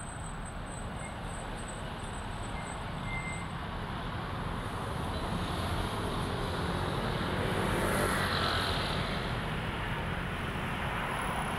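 Steady road traffic noise from passing cars, growing slightly louder, with a brief swell about eight seconds in.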